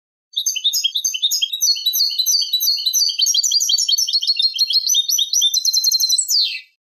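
European goldfinch singing a Málaga-style copla, the kind of song recording used to tutor young goldfinches. It is a run of quick, high chirping notes that speeds up into a fast trill and ends on a short falling note.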